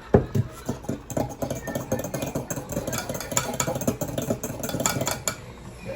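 Nespresso capsule coffee machine's pump running as it brews, a rattling, rapidly pulsing buzz that starts suddenly and cuts off about five seconds in.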